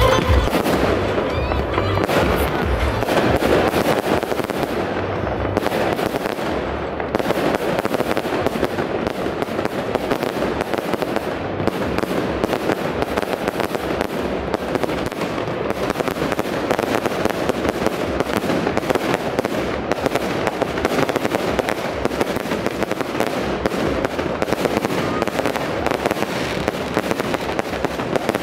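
Fireworks display: a dense, continuous run of bangs and crackling shells going off overhead.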